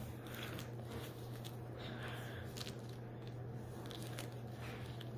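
Faint squishing and rubbing of a homemade slime-filled balloon stress ball being squeezed in the hands, in a few short soft bursts over a steady low electrical hum.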